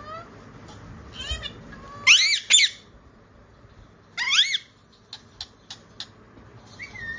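Indian ringneck parakeet giving short, pitched calls in three bursts, the loudest a double call about two seconds in. Four quick, evenly spaced clicks follow near the end.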